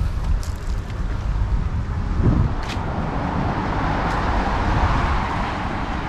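Road traffic: a car passing, its tyre hiss swelling to a peak about four seconds in and then easing, over a low steady rumble.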